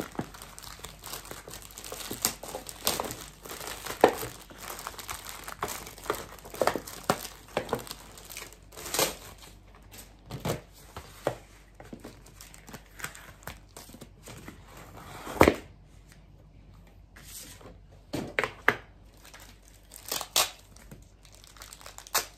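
Plastic wrapping and card packaging of a trading-card mega pack crinkling and tearing as it is pulled open by hand: irregular sharp crackles with two louder snaps.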